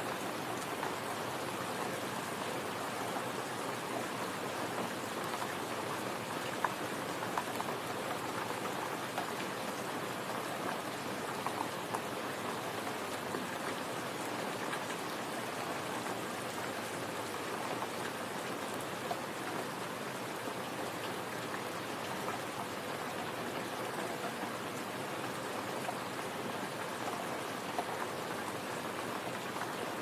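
Steady rain falling on leafy foliage, with a few louder single drops standing out.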